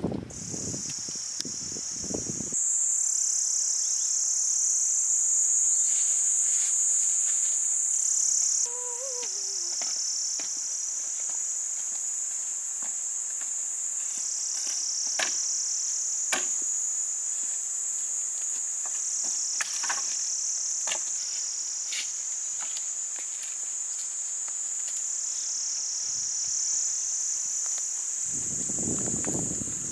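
Steady, high-pitched shrilling chorus of insects, with a few short knocks scattered through it.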